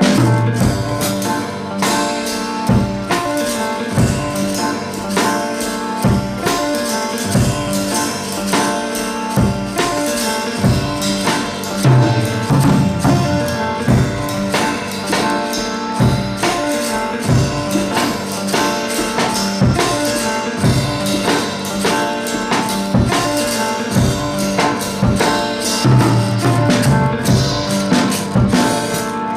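Background pop music with a steady drum beat and tambourine.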